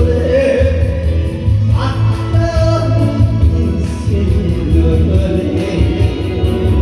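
A singer performing over loud backing music with a steady beat.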